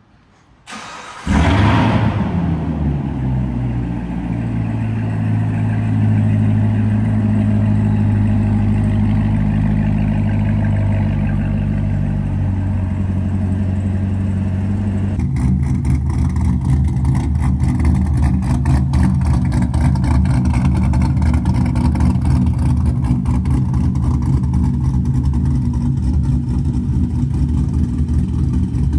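A Corvette V8 starts with a brief flare and settles into a steady idle. About halfway through, a cut brings in another Corvette V8 idling with a choppy, pulsing note.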